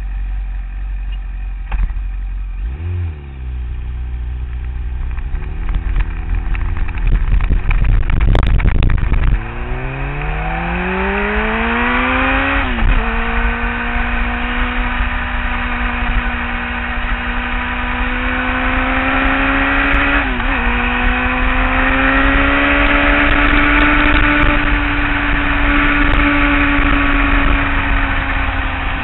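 Kawasaki ZX-10R inline-four sportbike engine, heard from onboard. It runs at low revs with a brief blip, then comes a few seconds of loud rough noise. The engine then accelerates with a long rising pitch, upshifts twice, and holds a steady high speed.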